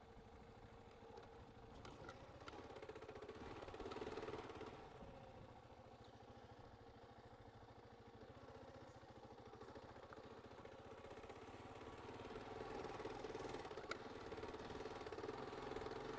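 Motorcycle engine running at low speed on a dirt trail, getting louder twice as the throttle is opened: about four seconds in and again from about twelve seconds in. A single sharp click about fourteen seconds in.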